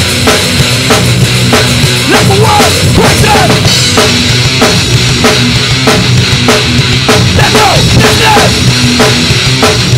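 Death metal / thrash band recording playing loud and dense, with a fast drum kit hitting bass drum and snare in a steady rhythm under the full band, and a few short sliding notes now and then.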